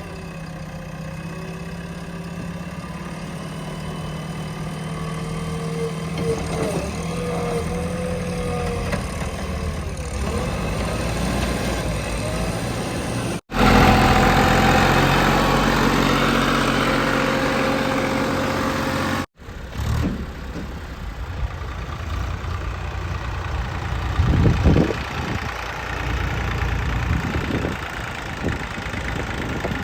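Heavy diesel engines of construction machinery running, in three stretches cut together; the middle stretch, from about 13 to 19 seconds in, is the loudest.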